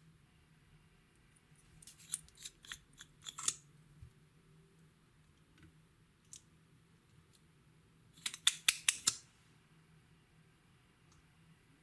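Two short runs of sharp clicks and snaps, several seconds apart, each lasting about a second to a second and a half.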